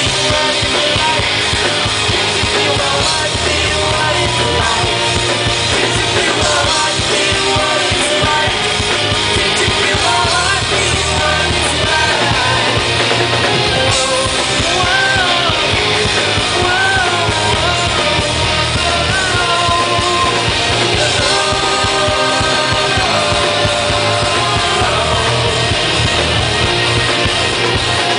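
Live rock band playing: electric guitars, bass guitar and drum kit, with a male lead vocal singing over them. The music is loud and steady throughout.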